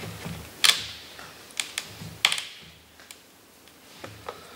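Small screwdriver driving a little screw down through a servo's plastic control arm: a handful of sharp, irregular clicks and taps.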